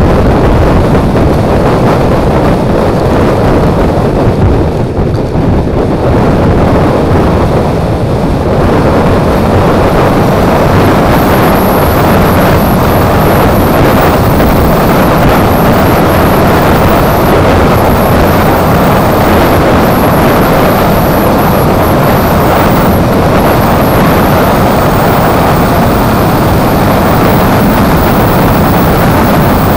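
Loud, steady wind rush over the microphone of a wing-mirror-mounted GoPro on a Suzuki Burgman 400 scooter riding at road speed. It eases briefly a few seconds in, and a thin high whine joins about a third of the way through.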